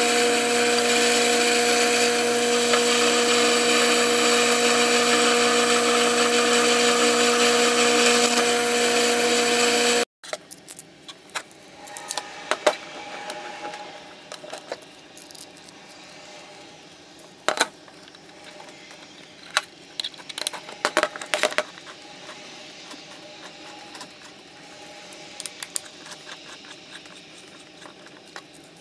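Sherline milling machine's spindle running steadily as a drill bit cuts into a block of 4140 pre-hard steel: a loud, even motor whine over a hiss. It stops abruptly about ten seconds in. After that come scattered light clicks and taps as the steel blocks and a hex key are handled.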